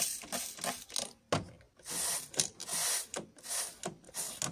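Trigger spray bottle of household cleaner squirting several times in quick succession, each squirt a short hiss with the click of the trigger.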